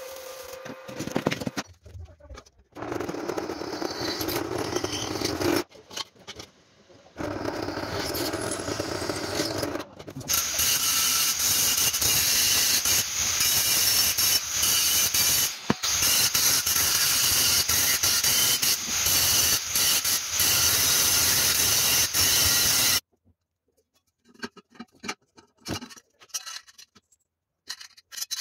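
Stick welding crackling in short runs, then an angle grinder grinding down welds on square steel tubing in one long steady run of about thirteen seconds that cuts off suddenly. After it come light clicks and taps of metal parts being handled.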